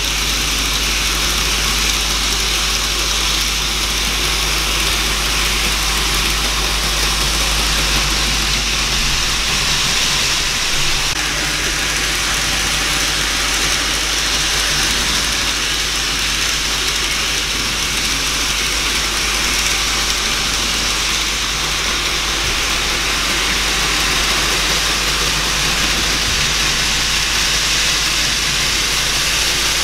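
N gauge model trains running on the layout: a steady whirring with a constant low hum underneath.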